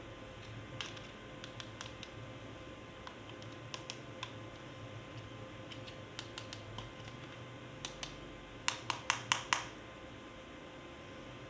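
Light, scattered clicks and taps of plastic toy parts being handled, then a quick run of five louder clicks, about five a second, near the end.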